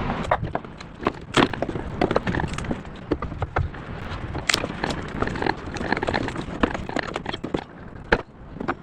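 Wooden pallet end boards being pounded loose with a 2x4: a run of irregular wooden knocks and cracks, several a second, with a few harder blows.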